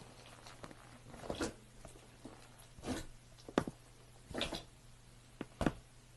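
Slime being squeezed and poked by hand: short, separate squishes and pops, about five in a few seconds, with irregular gaps between them.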